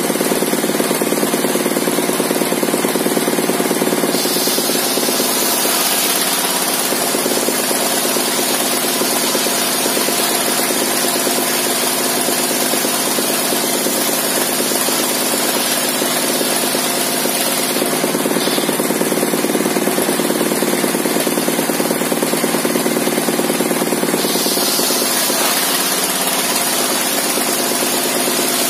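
Circular rip saw on a home-made saw bench, driven by a small stationary engine, ripping a long plank lengthwise. The engine runs steadily under the hiss of the blade cutting through the wood. The hiss changes in tone a few times as the board is fed through.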